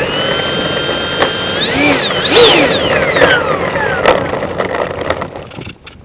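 Electric ducted fan (Mercury 64) of an RC jet whining over a rushing noise, its pitch holding and then swooping up and down as the throttle changes. Near the end it drops away sharply.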